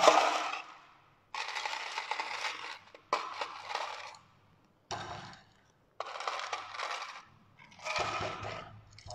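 Ice cubes clinking and rattling as they are scooped from a metal pot and tipped into a tall glass, in about five separate bursts.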